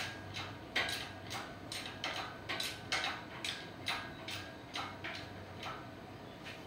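Hydraulic shop-crane engine hoist being pumped by hand to raise a suspended engine: a regular run of short clicks, about two a second, from the pump handle and ram.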